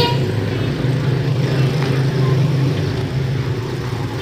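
Steady low engine hum of road traffic, with a short horn toot right at the start.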